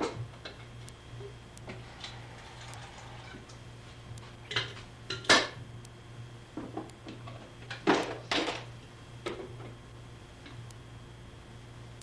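Scattered clinks and knocks of hard objects being handled, like dishes or utensils, loudest about five seconds in and again around eight seconds, over a steady low hum.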